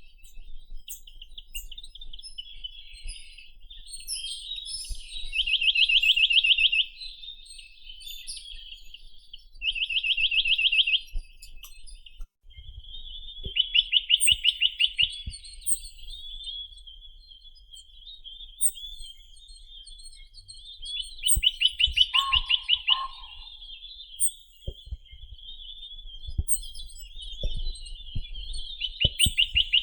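Chinese nuthatch (Sitta villosa) singing: fast trills of rapidly repeated notes, each about a second and a half long, given every few seconds, with softer twittering between them. Faint high chirps sound now and then, and a short lower two-note call comes about two-thirds of the way through.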